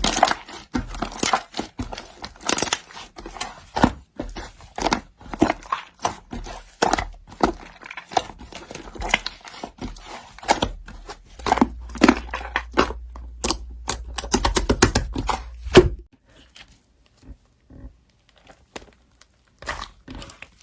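Slime being squished and stretched by hand: a dense run of sticky clicks and crackling pops, falling to faint scattered clicks about sixteen seconds in.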